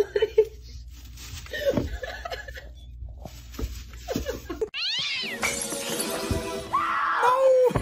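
A kitten mewing a few short times. About two-thirds of the way in, music starts, and near the end a cat gives drawn-out, wavering yowls.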